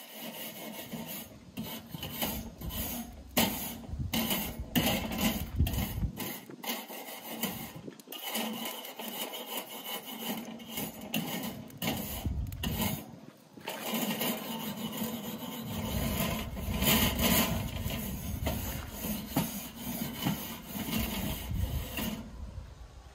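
Rough scraping or rubbing strokes repeated in quick runs, with two short lulls about six and thirteen seconds in.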